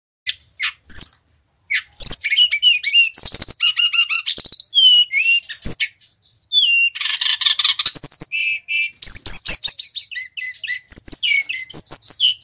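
Male brown-chested jungle flycatcher singing: a couple of short high notes, then from about two seconds in a fast, nearly unbroken run of varied whistled notes, glides and buzzy trills.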